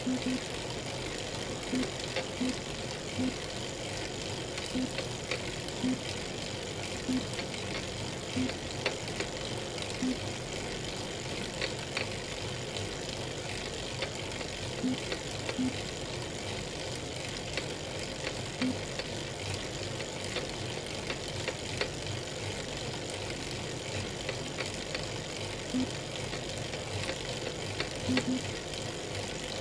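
Elite Real Turbo Muin B+ bike trainer running under a pedalling rider: a steady whirr broken by short, irregular cracking knocks, about one a second at first and sparser in the middle. This is the cracking that the owner gets from the trainer at any cadence whenever power goes over 200 watts.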